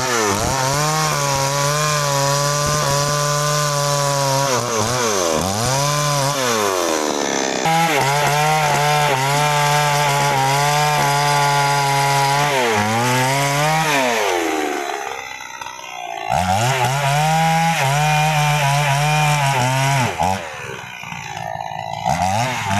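New West 628 two-stroke chainsaw running at full throttle while cutting through a sengon log, the revs sagging under load and picking back up. About two-thirds of the way through it drops briefly toward idle, then revs up again for the next cut.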